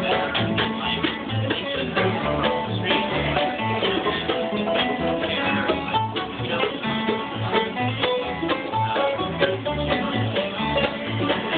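Acoustic bluegrass band playing: upright bass plucking a steady, even bass line under strummed acoustic guitar, mandolin and banjo.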